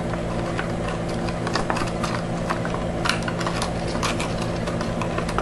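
Light, scattered clicks and taps of small washi tape rolls being handled on a table, over a steady low hum.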